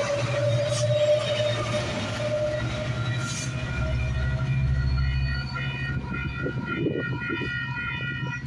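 Metrolink EMD F125 diesel locomotive, with its Caterpillar V20 engine, pushing its train away from the platform: a steady low engine hum with rail and wheel noise, slowly fading as it pulls away. Steady high ringing tones sound over it in the second half.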